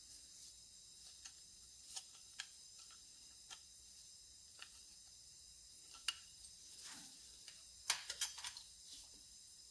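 Faint, scattered clicks and taps of chainsaw parts being handled on a workbench, with a quick cluster of louder clatter about eight seconds in.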